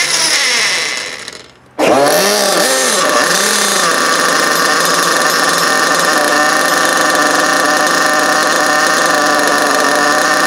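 Picco .28 nitro glow engine running. It dies away about a second in, catches again sharply near two seconds, wavers in pitch for a moment, then runs steadily at a fast idle, which the owner then calls off.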